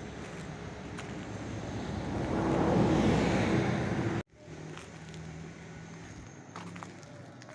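A motor vehicle growing louder as it passes close, with a steady engine tone at its loudest, then cut off abruptly about four seconds in, leaving quieter outdoor noise with a faint low hum.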